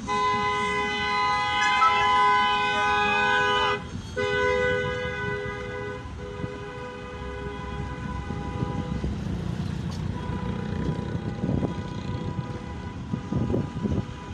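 Minibus taxi horns held down in long, steady hoots in a show of support, with a short break about four seconds in. The hooting dies away after about eight seconds, leaving a low rumble of vehicles.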